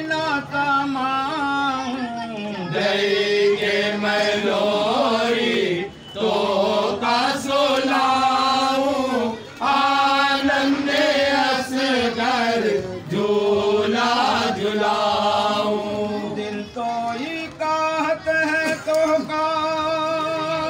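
A man singing a devotional kalam, drawing out long held notes with a wavering pitch and sliding between them.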